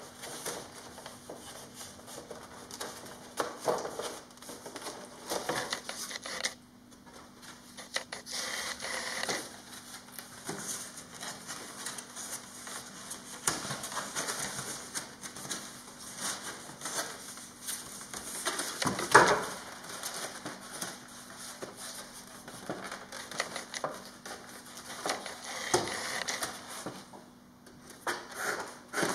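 Foam RC-plane airframe parts being handled and set down on a table: rubbing, rustling and irregular clicks and knocks, the loudest knock about 19 seconds in.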